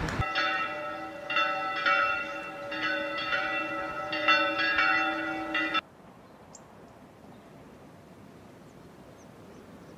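Church bells ringing, several overlapping bell tones struck again and again, cut off abruptly about six seconds in. After that only quiet outdoor air with a few faint high chirps.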